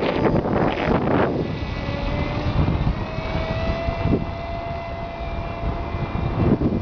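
Wind rushing over the microphone for about the first second, then the steady whine of a Bixler RC plane's electric motor and propeller.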